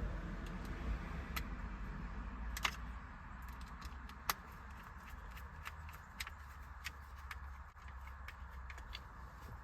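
Scattered small, sharp clicks and ticks of a Torx screwdriver and plastic parts as T10 screws are driven into a steering-wheel cruise control switch faceplate, with two louder clicks a few seconds in. A low steady hum runs underneath.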